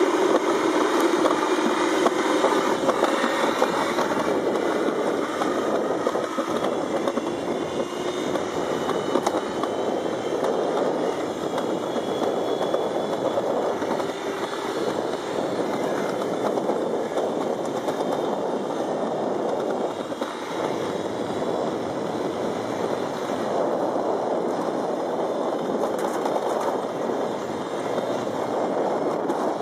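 Summer toboggan sled running fast down a stainless-steel trough track: a steady rumbling, rushing noise, with a rising whine in the first few seconds.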